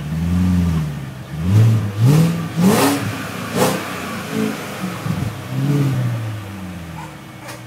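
A 2000 BMW 540i's 4.4-litre V8 through a new Magnaflow exhaust, revved in a series of quick throttle blips that fall back to idle between each. The two strongest revs come about three seconds in.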